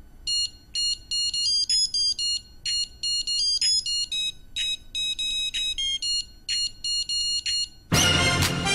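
Background music: a quick melody of short, high-pitched electronic notes, about three a second. A louder, fuller music track comes in near the end.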